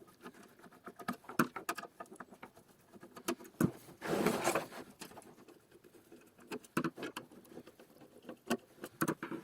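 Irregular clicks, taps and light clatter of a screwdriver and hands working on a PC power-supply casing as its housing screws are undone, with a short scraping rustle about four seconds in.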